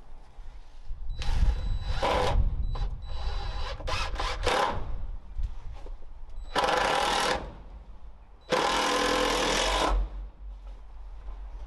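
Cordless drill running in bursts as it drives screws into wood: a run about a second in, a quick string of short trigger pulses, then two more steady runs, the last about a second and a half long.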